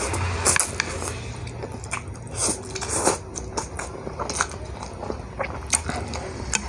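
Close-up eating sounds of soupy instant noodles: slurping, biting and chewing, with irregular short wet slurps and mouth clicks.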